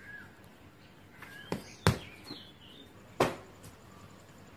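Kicks slapping against a handheld kick pad: a quick pair of sharp smacks about a second and a half in, the second the louder, then one more about three seconds in. Small birds chirp faintly in the background.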